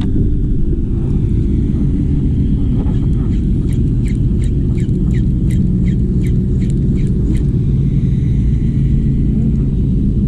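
Wind buffeting the microphone, a loud steady low rumble. In the middle, a quick run of about ten sharp chirping clicks, roughly three a second.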